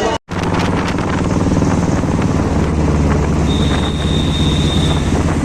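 An engine running steadily with an even low hum, and a thin high whine in the second half.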